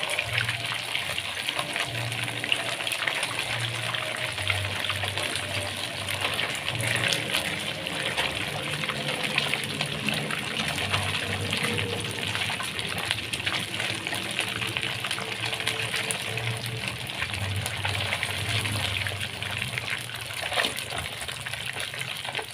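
Catfish pieces deep-frying in hot oil in a wok: a steady sizzle thick with fine crackling.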